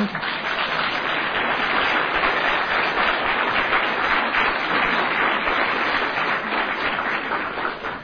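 Audience applauding steadily for several seconds, dying away near the end.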